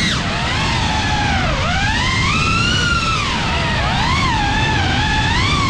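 FPV quadcopter's motors whining, the pitch sweeping up and down constantly with the throttle, over a steady low rushing noise.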